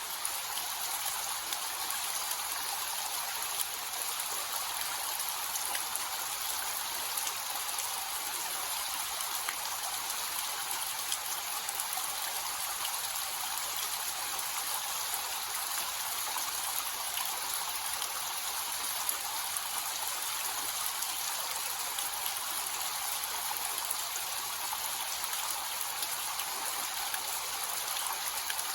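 Small waterfall with a low, gentle flow: a steady hiss of falling and splashing water, mostly high in pitch with little deep rumble, dotted with faint droplet ticks.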